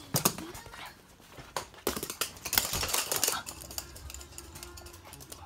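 Toy poodle landing on a hard wood-look floor, then its claws clicking and tapping rapidly as it scampers about, the clicks thickest about two to three seconds in.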